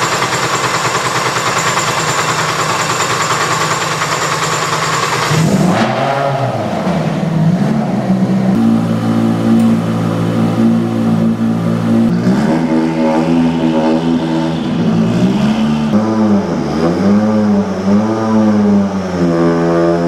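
M-Sport Ford Fiesta Rally2 rally car engine just after starting. It runs at a fast, noisy idle for about six seconds, then drops to a lower idle and is blipped several times, each blip rising and falling quickly.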